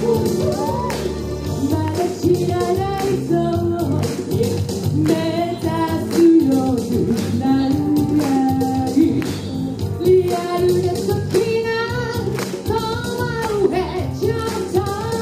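Woman singing a pop song into a microphone over a dance-pop backing track with a steady beat.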